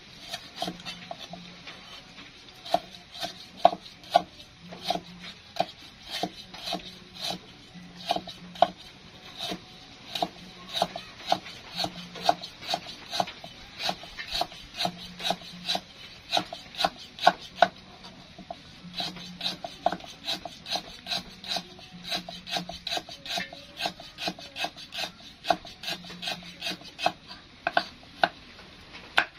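Cleaver chopping garlic on a thick wooden chopping block: a steady run of sharp knocks, roughly two a second, with a few short pauses.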